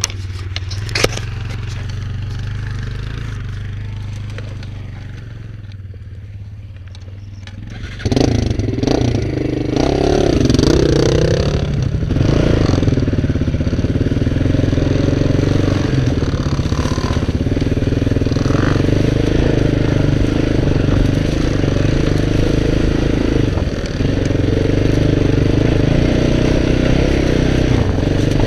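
ATV engine idling for about eight seconds, then suddenly throttled up: its pitch rises and falls for a few seconds before it settles into a steady, loud run under load as the quad climbs the trail.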